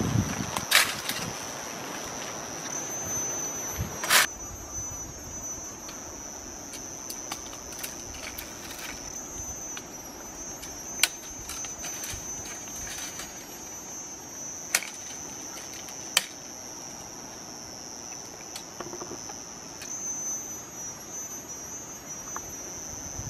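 Insects in the forest singing at one high, steady pitch with a slight waver. A few sharp snaps of twigs and stems stand out over it, the loudest about 4, 11, 15 and 16 seconds in.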